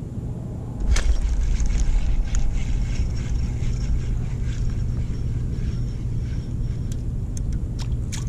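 Low rumbling buffeting on the microphone that starts suddenly about a second in with a sharp click, with scattered clicks over it as a small spinning ice rod and reel are handled.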